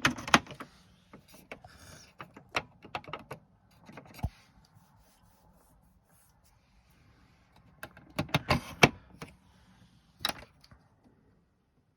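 Irregular clusters of small plastic clicks and knocks as toy washing machines are handled, with quieter stretches between them.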